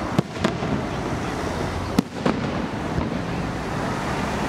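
Aerial firework shells bursting: about five sharp bangs, two close together near the start, the loudest about two seconds in, over a steady background of noise.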